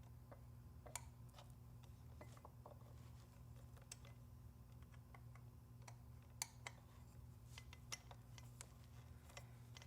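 Faint, scattered metallic clicks of a 5 mm Allen key working the bolts of a bicycle stem faceplate as they are snugged down in turn, over a low steady hum.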